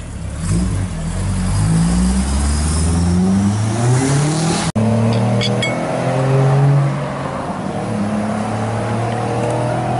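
A car engine accelerates hard, its pitch climbing in about three rises as it changes up through the gears. An abrupt cut comes about halfway through. After it an engine runs more steadily with a slowly rising pitch as a car drives by.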